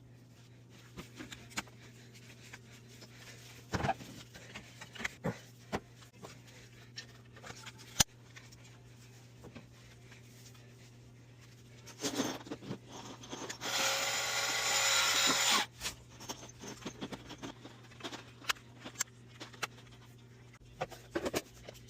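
Clack water softener control valve being reassembled by hand: scattered clicks and knocks of small parts, with one sharp click about 8 s in. About two-thirds of the way through comes a couple of seconds of loud, steady rushing noise.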